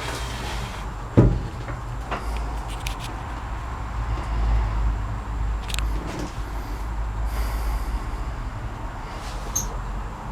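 A sharp knock about a second in, then scattered small clicks and rattles, over a steady low rumble.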